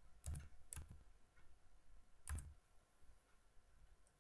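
Three isolated sharp clicks at a computer: two close together a moment in, and a louder one past two seconds. Otherwise near silence.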